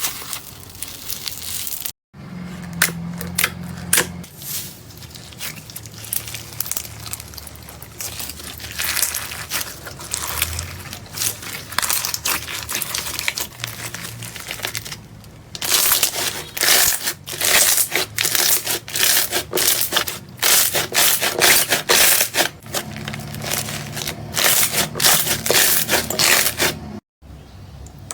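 Crunchy slime being squished and pressed, crackling and popping in dense runs of small clicks. It is busiest and loudest in the second half, with brief silent breaks about two seconds in and near the end.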